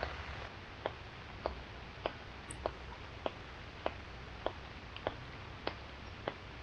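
Regular faint ticking, one sharp tick about every 0.6 seconds, over a low steady hiss.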